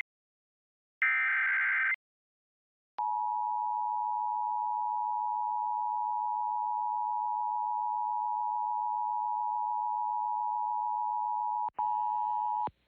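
Emergency Alert System broadcast: the last burst of the digital SAME data header, about a second of buzzy data screech. After a second's pause comes the EAS attention signal, a steady two-tone alert tone (853 and 960 Hz) held for almost nine seconds; it breaks off briefly and resumes for under a second before stopping.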